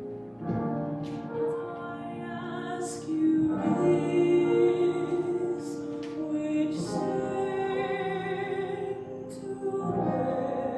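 A woman singing a slow solo song into a microphone, with long held notes, over a sustained musical accompaniment.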